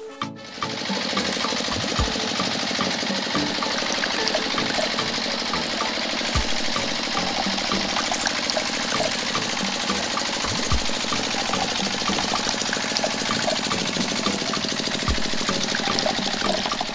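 Liquid running steadily, as juice pours from the spouts of a miniature toy juice machine into small metal buckets, with many small clicks and a few soft low thumps several seconds apart.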